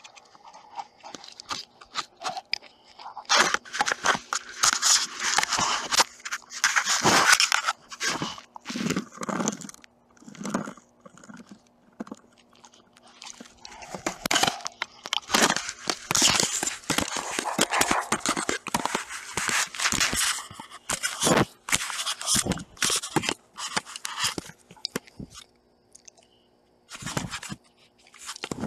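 A Dalmatian chewing on the video camera right at its microphone: irregular crunching, scraping and clicking of teeth on the camera body. There are quieter gaps about ten seconds in and again shortly before the end.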